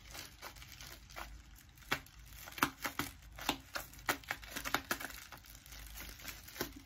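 Clear plastic wrapping crinkling and crackling in the hands as a small package is worked open, in irregular sharp crackles that are densest through the middle.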